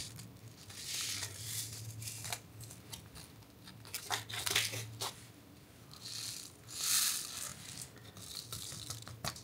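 Small aluminium-foil seed pouch crinkling as it is squeezed, flexed and shaken to get the seeds out. It comes in several short rustling bursts, the longest about seven seconds in.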